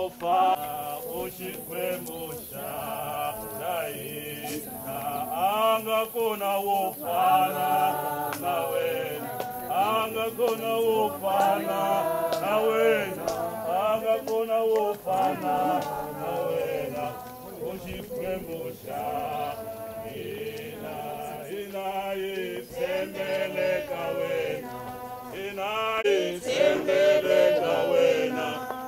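A group of voices, men among them, singing a hymn together in a chant-like style, continuously throughout.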